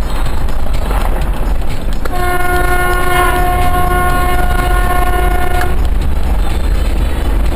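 A vehicle horn sounds one steady note for about three and a half seconds, starting about two seconds in, over the steady low rumble of the moving vehicle.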